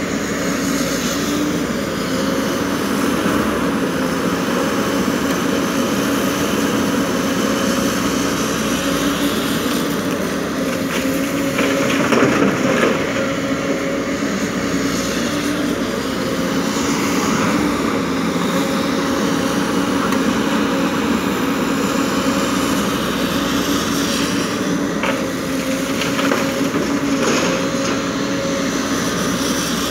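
JCB tracked excavator's diesel engine and hydraulics running steadily under load with a held hum, while broken rock clatters as the bucket digs and dumps into a dump truck's steel bed; the clatter is loudest about twelve seconds in and comes again twice near the end.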